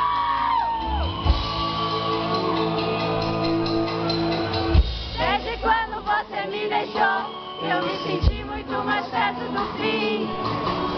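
Live concert music heard from the audience in a large hall: held chords with a few deep drum hits. Fans shout and whoop over it, and from about halfway on many voices are singing and calling out.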